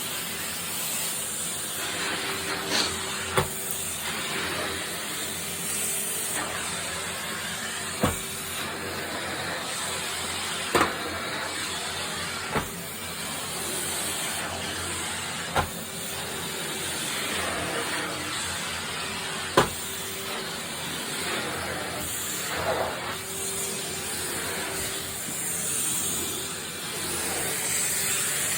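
Vacuum cleaner running steadily over carpet: a constant rushing hiss with a faint steady hum. About six sharp knocks come at irregular intervals.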